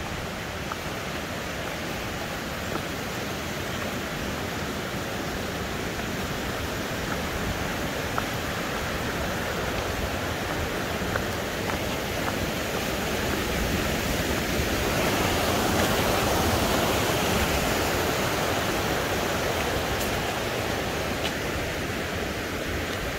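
A rushing mountain stream, a steady noise of running water that grows louder a little past the middle and eases off again.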